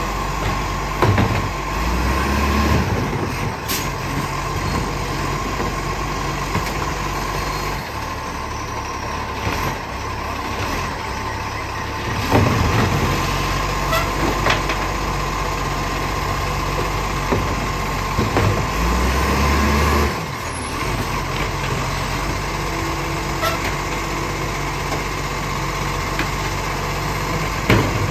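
ACCO side-loader garbage truck running steadily while its hydraulic arm grabs, lifts and empties wheelie bins; the engine revs up briefly several times with the lift cycles. Several sharp bangs come as bins are shaken out and dropped back down.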